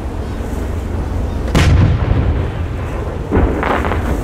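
Fireworks shells booming: one loud boom about one and a half seconds in, and a second boom about two seconds later followed by a brief rattle.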